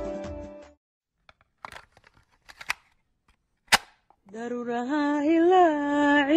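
Flute-led music fades out, followed by a few faint clicks and one sharp click, then a solo voice begins singing a long, wavering melismatic line about four seconds in.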